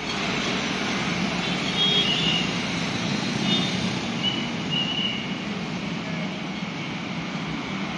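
Steady road traffic noise with a running engine hum, and a few brief high-pitched tones over it.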